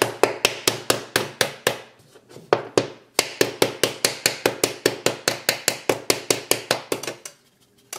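Kitchen knife blade smacking rapidly against the glass of an iPhone 8 Plus, about five sharp clacks a second. Short breaks come around two and three seconds in, and the smacking stops about a second before the end.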